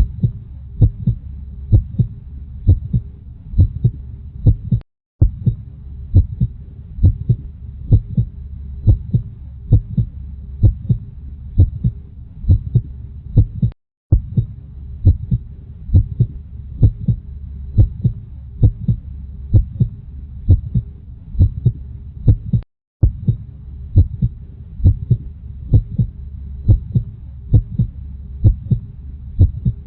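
Heartbeat, a steady double beat (lub-dub) of low thumps over a low rumble, repeating evenly. It cuts out to silence for a moment three times, where the recording loops.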